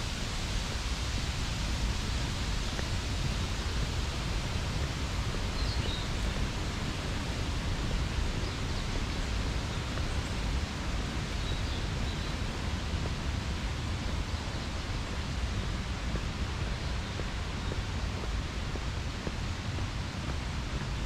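Steady outdoor ambience with a low rumble of wind on the microphone and an even hiss, with a few faint high bird chirps now and then.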